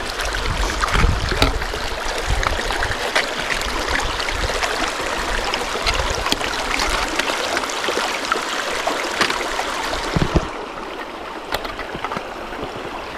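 A rocky mountain creek rushing and gurgling over boulders, with scattered small knocks and scuffs. The rush drops a little in level about ten and a half seconds in.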